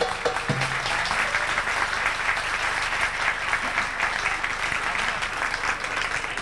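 Audience applauding in a dense, steady patter of clapping at the end of a song, with the last musical note dying away in the first second.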